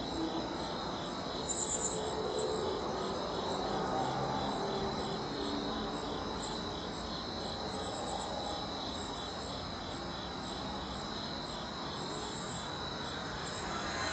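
Night chorus of crickets: a steady high trill with an evenly pulsing call beneath it, and a few short higher chirps from another insect, over a faint low background hiss.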